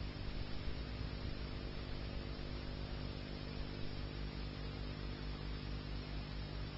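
Steady electrical hum with a low buzz and an even background hiss, unchanging throughout, with no music or voice.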